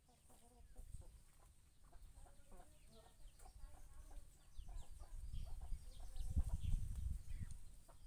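Chickens clucking while they forage, in many short repeated calls. A low rumble builds up from about halfway through and becomes the loudest sound.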